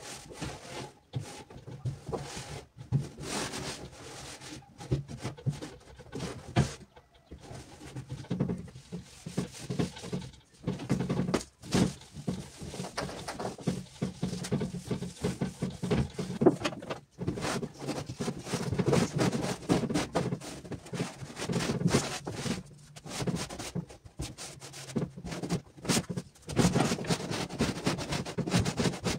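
Cleaning a melamine wardrobe: a cloth rubbing over the doors, with frequent knocks and clicks as the doors are opened and handled.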